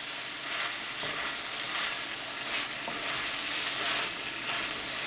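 Chopped green bell peppers coated in a spice mix sizzling in oil in a kadai while a wooden spatula stirs them. The sizzle is steady, swelling a little now and then with the stirring.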